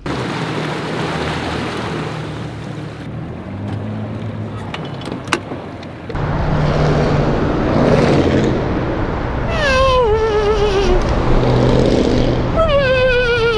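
Bass boat outboard engine running at speed, with a steady rush of water and wind. Twice near the end a wavering tone falls in pitch over about a second and a half.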